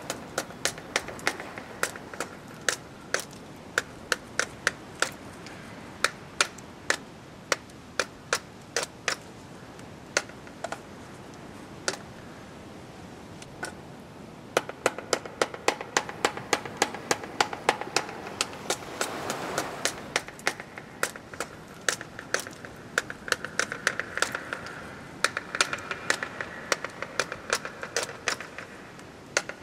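Typewriter keys clacking in irregular runs of rapid strokes, with short pauses between runs.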